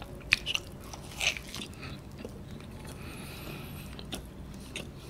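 Close-miked biting into a folded slice of extra-cheese pizza, with a few sharp crunches of the crust in the first second and a half, then steady mouth-chewing.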